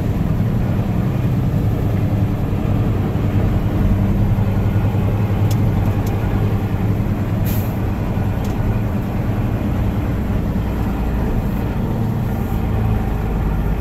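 1988 Mercedes-Benz Unimog's diesel engine running steadily as the truck drives forward in third gear, heard from inside the cab. A couple of brief high hisses come about halfway through.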